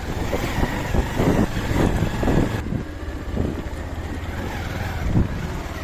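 Motorcycle engine running at low speed on a rough dirt track, with wind buffeting the microphone and irregular knocks from the bumps.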